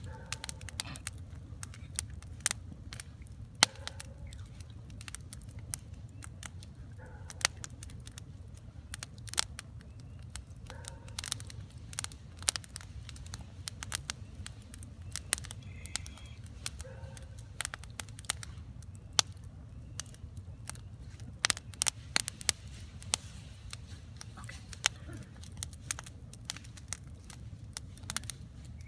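Wood campfire crackling, with irregular sharp pops several times a second over a low steady rumble.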